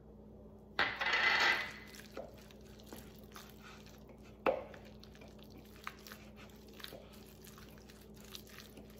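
A wooden spoon scraping and knocking against glass bowls as sour cream is scraped in and stirred into shredded chicken: a loud scrape with a light glassy ring about a second in, a sharp knock at about four and a half seconds, and soft clicks of stirring in between.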